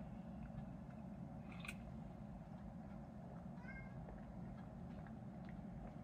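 A cat gives one short meow a little past halfway, over a steady low hum. A faint click comes a moment earlier.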